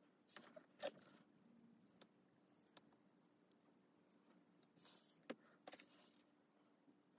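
Old comic book pages rustling and sliding as they are handled and turned, in two short bursts, about a second in and around five seconds in, each with a sharp tick.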